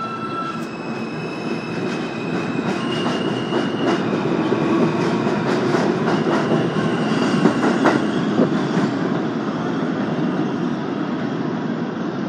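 An R160 subway train pulls out of an elevated station. Its traction motors give a whine that jumps up in pitch in steps as it gathers speed, and its wheels click over the rail joints. The sound eases off near the end as the train leaves.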